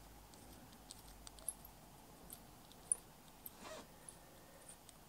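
Mostly quiet, with a few faint light clicks and a brief soft rustle from hands handling a small 3D-printed plastic gear and a small screwdriver; the sharpest click comes about three seconds in.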